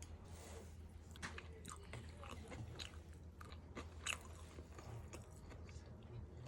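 Close-up eating sounds: food being bitten and chewed with irregular crisp crunches and clicks, over a steady low hum.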